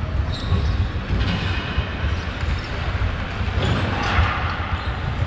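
Ice hockey practice on the rink: skates scraping and carving the ice with irregular knocks of sticks and pucks, over a steady low rumble.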